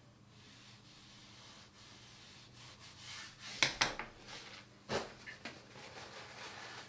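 Flat nylon brush rubbing across damp cold-pressed watercolour paper, a faint scratchy rub as it lifts out pigment to make a light. A few light knocks follow about three and a half and five seconds in.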